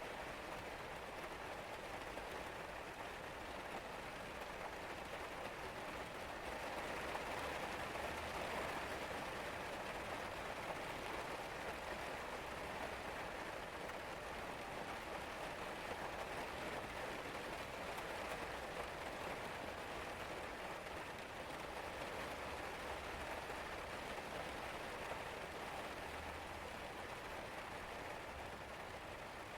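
Steady rain falling, an even hiss of many drops, swelling a little about a quarter of the way in.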